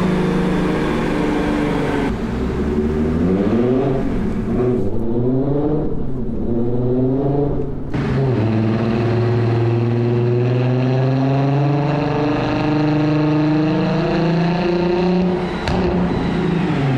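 Turbocharged 3.0-litre VR6 engine of a Golf 4 R32 running on a chassis dyno. The revs go up and down in a few short blips, then climb slowly and steadily in pitch before breaking off sharply near the end and picking up again.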